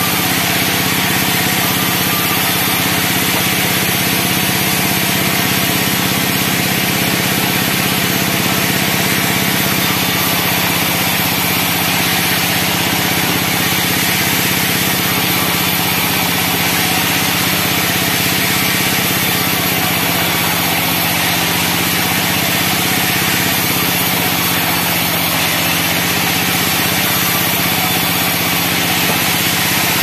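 Band sawmill running steadily, its blade cutting pine as boards and a log are pushed through, over a constant drone from the saw's drive.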